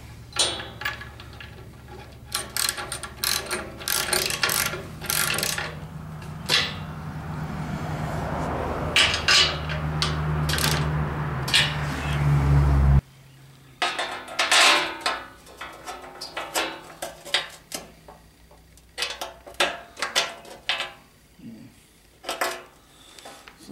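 Wrench and bolts clinking and clanking against the steel bracket and frame of a Kuhn mower as the bracket is bolted on, in many short metallic clicks. A steady low hum underneath grows louder and cuts off suddenly about halfway through.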